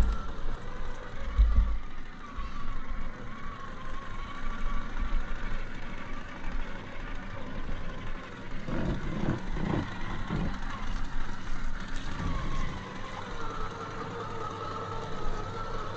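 Gmade GS02F Buffalo RC crawler running: its electric motor and gear drive whine steadily, the pitch wavering up and down as the throttle changes. There are a few low thumps in the first two seconds.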